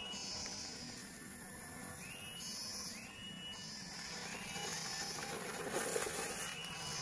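Electric motor whine of a 1/12-scale RC crawler truck, rising in pitch each time throttle is applied, in short repeated bursts, as it crawls down a steep dirt trail.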